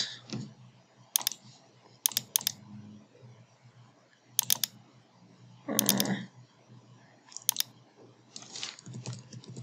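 Computer mouse clicking in short groups, several of them quick double-clicks, with about five bursts a second or so apart; the one near the middle is louder and fuller.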